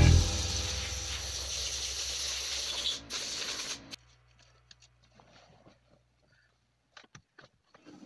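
Brush scrubbing a plastic engine part, a steady rough hiss over a low hum that cuts off about four seconds in. Then near silence with a few faint clicks and taps of tools.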